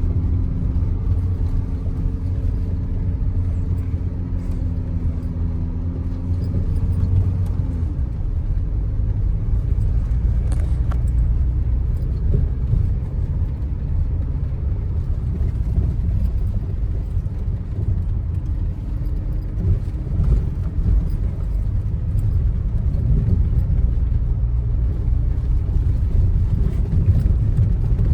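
Audi Q5 being driven: a steady low rumble of engine and tyres, with a held engine note through roughly the first eight seconds.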